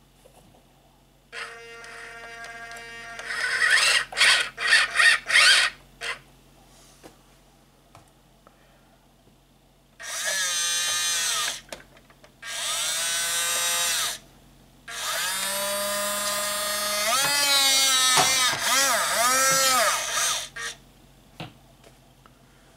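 Small electric motors and plastic gearboxes of a remote-control toy wheel loader whining in four separate runs of a few seconds each, the pitch wavering up and down in the last and longest run.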